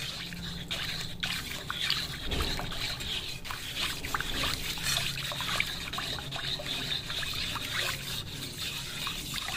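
Silicone whisk beating thin milky white sauce in a non-stick pan: continuous sloshing and splashing, with many small quick taps of the whisk against the pan. The sauce is still runny, the rest of the milk just whisked in.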